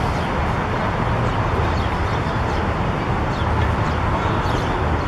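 Steady outdoor background noise with a low rumble, and faint high chirps now and then.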